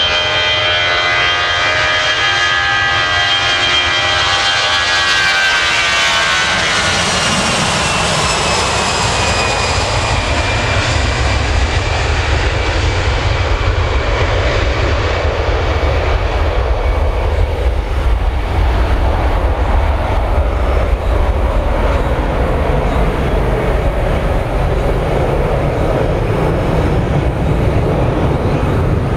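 Airbus A320-200 airliner's twin jet engines at takeoff thrust. A whine of several tones rises in pitch over the first several seconds, then gives way to a loud rushing noise through the takeoff roll and liftoff. As the jet climbs away the high sound fades and a deep rumble remains.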